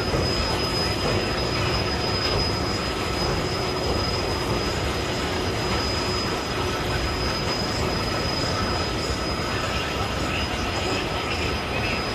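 Thyssen bucket wheel excavator running: a steady, unbroken machinery noise with a constant high-pitched whine over it.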